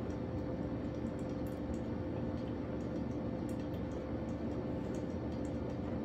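Steady hum and hiss with faint, irregular ticks: a drip coffee maker heating and brewing while an EcoFlow River portable power station powers it under a load of about 537 watts.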